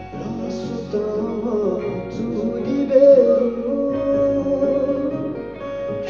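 A man singing held, wavering notes into a microphone, accompanied by guitar.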